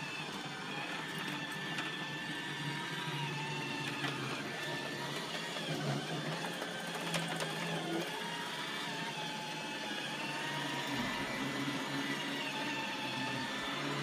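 iRobot Roomba 880 robot vacuum running on carpet: a steady motor whir whose whine wavers up and down in pitch, with a few light clicks in the middle.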